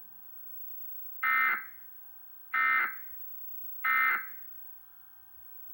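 Emergency Alert System end-of-message signal: three identical short bursts of the harsh digital data tone (NNNN), about a second and a half apart, closing the required monthly test.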